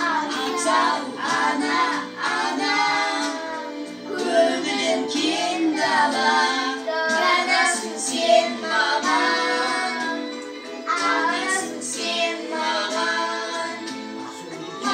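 A woman singing into a microphone with a young girl singing along, over steady backing music.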